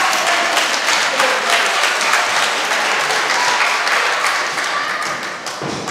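Small crowd applauding and clapping, with a few voices calling out over it; the applause eases off near the end.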